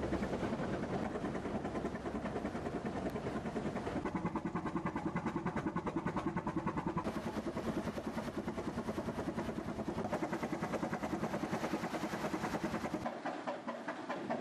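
Three-cylinder Callesen 427 CO marine engine running steadily with an even, rapid beat. The deep rumble drops away about a second before the end.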